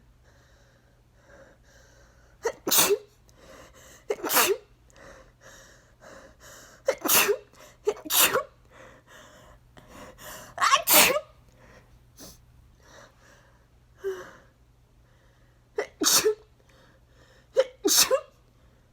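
A person's allergy sneezing fit: about seven loud sneezes in quick succession, a second to a few seconds apart, with gasping in-breaths between them.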